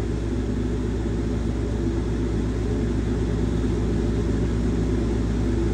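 Wood-Mizer LT40 band sawmill running with its engine at a steady pitch, a constant low drone.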